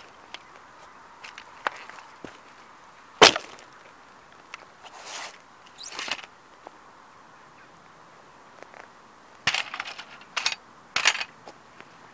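Die-cast metal Ferrari model car cracking and snapping under a heavy sneaker sole on gravel. There is one sharp crack about three seconds in, the loudest, then crunching around five to six seconds and a quick run of snaps near the end.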